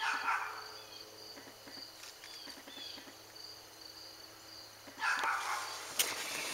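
Faint, regular high-pitched chirping, about two short chirps a second, in the background. A louder noisy burst comes at the start and another about five seconds in, and a few sharp clicks come near the end.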